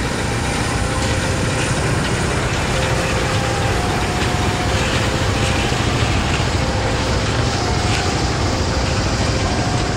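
Diesel locomotive engine running steadily as it slowly hauls a train of old freight wagons past, with their wheels rolling over the rails. The train is limited to about 10 km/h because the wagons are worn and decayed.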